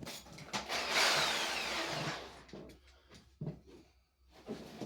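Reciprocating saw (sawzall) shaving wood. It runs loudest about a second in, then its pitch falls as the motor winds down, followed by a couple of short bursts.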